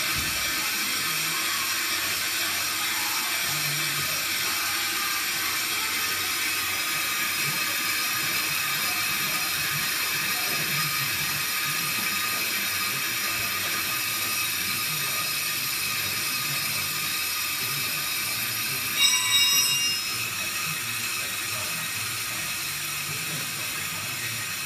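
Pro-Cut on-car brake lathe running, turning the car's hub and brake disc while its cutting tool skims the disc faces to cure brake judder: a steady mechanical whine with many high tones. About 19 seconds in, a short, louder high-pitched squeal lasting about a second.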